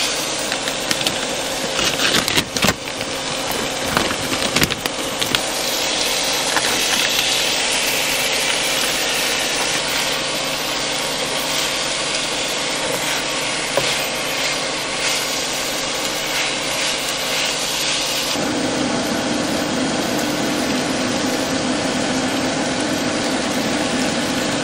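Chicken, peppers and onions sizzling in a hot cast-iron pan, with scraping and a run of knocks as the food is stirred a few seconds in. About eighteen seconds in the sizzle turns lower and fuller.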